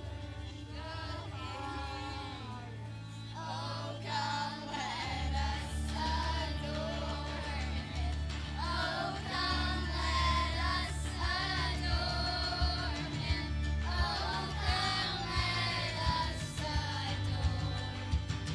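A song with singing over instrumental accompaniment; a heavier bass beat comes in about five seconds in.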